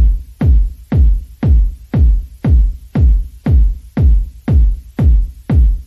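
Background electronic music with a steady, punchy kick drum beating about twice a second.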